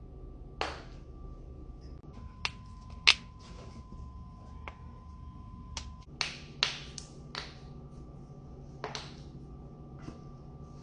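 Knuckles cracking: about a dozen sharp, irregularly spaced pops, several in quick succession about six to seven and a half seconds in, the loudest about three seconds in. A faint steady hum sits underneath.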